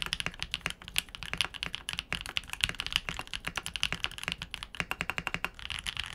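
Fast continuous typing on a Keebfront Vanguard 65 mechanical keyboard built on the aluminum plate with Keebfront Doom long-pole switches: a dense stream of keystrokes with a solid, deep sound, not hollow.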